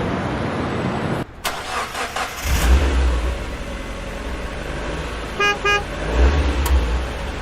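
Road vehicle engine running with a deep rumble, and two short horn beeps about two-thirds of the way through.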